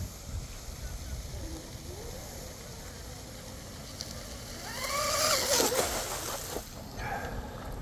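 A 21-inch RC catamaran's 2948 3450 kV brushless motors running at speed on the water: a faint whine early on, then a louder whine that rises and falls in pitch as the boat passes close, about five seconds in, with a hiss of spray.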